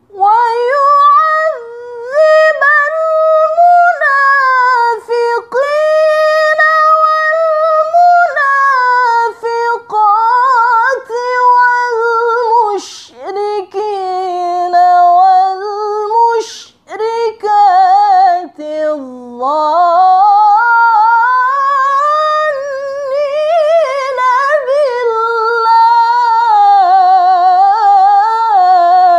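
A woman reciting the Quran in melodic tilawah style, one unaccompanied voice drawing out long, ornamented notes that climb and fall with vibrato. Two short hissed consonants cut in about halfway through.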